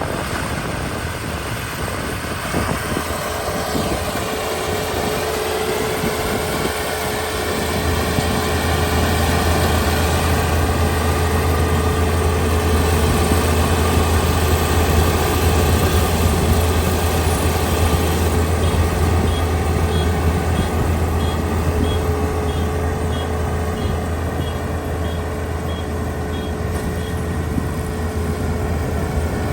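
Kubota ER572 combine harvester's diesel engine running steadily, its low drone growing louder about eight seconds in. A faint high beeping repeats at an even pace for several seconds in the second half.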